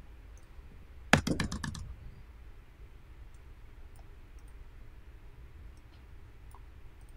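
Computer keyboard keys tapped in a quick run of about eight clicks about a second in, the Enter key pressed repeatedly at a switch console prompt. A few faint clicks follow.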